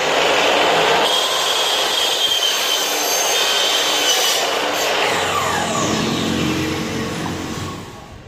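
Makita miter saw running and cutting through a U-channel. From about five seconds in, the blade spins down with a falling whine that fades near the end.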